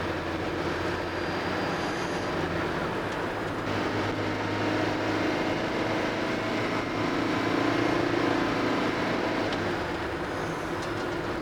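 Car driving at steady speed, heard from inside the cabin: a continuous rumble of road and engine noise with a low hum.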